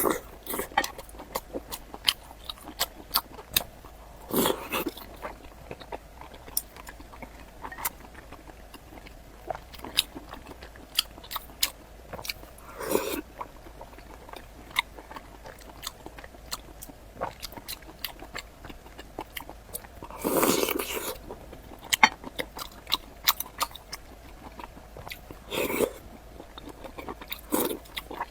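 Close-miked chewing of sliced pork in garlic sauce: wet mouth clicks and smacks throughout, with several louder bites or slurps.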